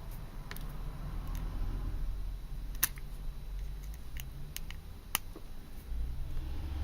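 Small clicks and taps of an aluminium flashlight being handled while its pocket clip is fitted, over a low rumble of handling. About half a dozen sharp clicks, the loudest about three seconds in.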